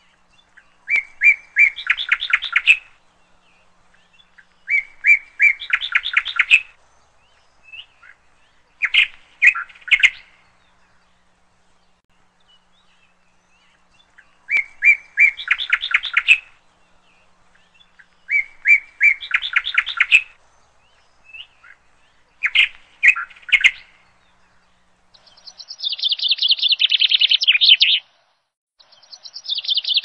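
A songbird singing the same short phrase over and over, roughly every four seconds: two or three clear notes followed by a fast, rising trill. Near the end a denser, continuous twittering takes over.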